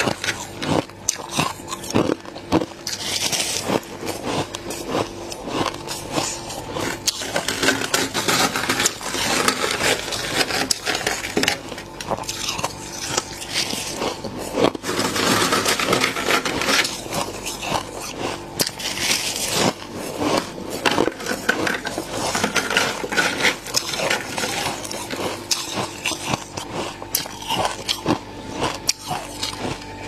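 Gloved fingers pressing into and scraping thick, fluffy frost crystals off a freezer wall: dense crunching and crackling, with longer scraping stretches every few seconds.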